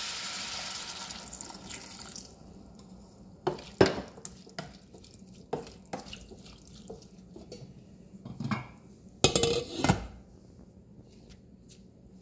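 Water added to the hot saucepan of beetroot, hissing and fading away over the first two seconds. Then a wooden spoon knocks and scrapes against the stainless pot in scattered clicks, with louder clatters about four seconds in and again near the ten-second mark.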